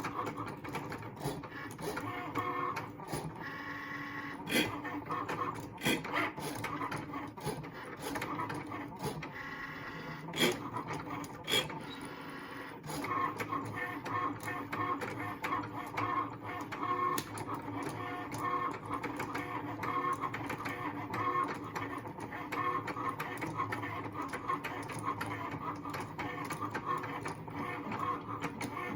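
Cricut Maker cutting machine running a cut: its carriage and roller motors whine and click, with a steady run of quick pulses from about halfway through. The machine makes the grinding noise the owner reports when the blade travels near the middle, present since first use of a new machine.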